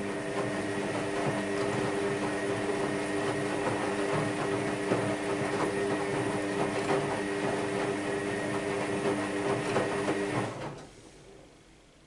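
AEG Lavamat Protex L72475FL front-loading washing machine tumbling laundry in water: the drum motor runs with a steady whine while the wet clothes slosh and fall. The drum stops about ten and a half seconds in.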